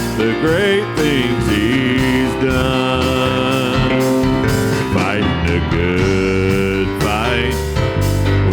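Country-style gospel song played with guitar, a wavering melody line running over held chords.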